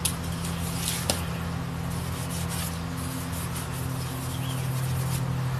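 Faint rubbing of a hand-held cloth over a steel crankshaft journal, with a single light click about a second in, over a steady low electrical hum.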